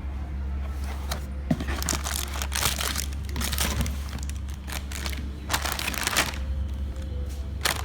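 Plastic snack packaging crinkling in bursts as it is handled and turned over, over a steady low hum.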